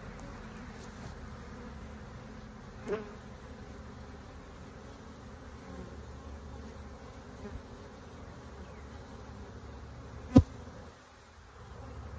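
Honeybees buzzing around an opened hive, a steady hum. A small sharp knock comes about three seconds in and a much louder one near the end.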